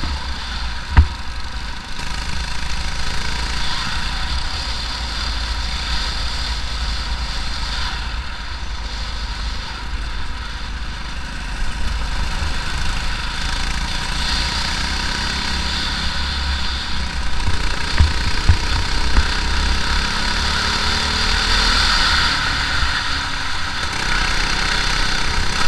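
Briggs & Stratton LO206 four-stroke single-cylinder kart engine running at low speed, heard from the kart with wind rushing over the microphone. A sharp knock comes about a second in, and a few more past the middle.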